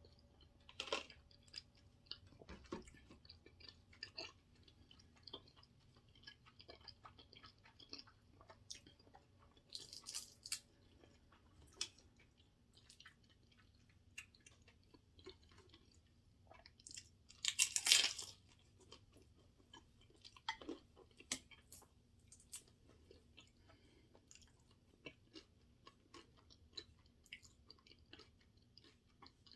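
Close-miked mouth sounds of someone chewing food, with scattered small wet clicks and crunches. A louder noisy burst comes about two-thirds of the way through, with a shorter one about a third of the way in.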